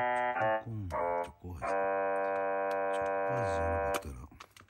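Electronic keyboard music: a few short held chords, then a long chord held about two seconds that stops suddenly near the end. Faint clicks of a plastic snack bag being handled run underneath and are plainer after the music stops.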